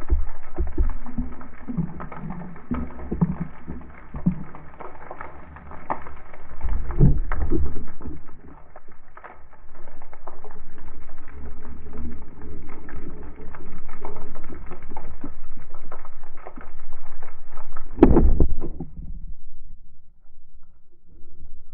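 Muffled underwater sound from a spearfishing dive, with a run of knocks and scrapes and one sharp, loud impact about eighteen seconds in, after which it goes quieter.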